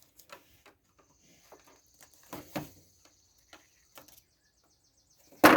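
Small clicks and taps of a hair dryer's plastic housing being handled and worked at by hand while trying to unclip a part, with a couple of louder knocks midway and one loud sharp clack near the end.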